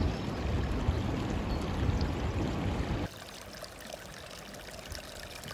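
Steady rushing noise at a steaming hydrothermal vent, then an abrupt cut about three seconds in to a small stream of milky geothermal runoff trickling over roots, much quieter.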